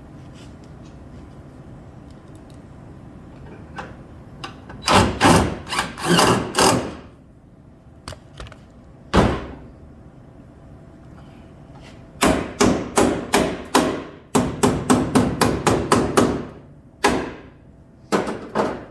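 Hammer blows on the steel body of a 1979 Camaro, beating metal into place while a replacement rocker panel is fitted. The strikes come in bursts: a handful about five seconds in, a single one near nine seconds, then a fast run of a dozen or so, and a few more near the end.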